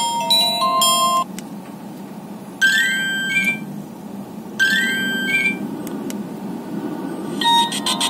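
Nokia 1110's small phone speaker playing monophonic ringtone previews. A stepped beeping melody ends about a second in, a short rising alert tone plays twice, two seconds apart, and a new beeping pattern starts near the end.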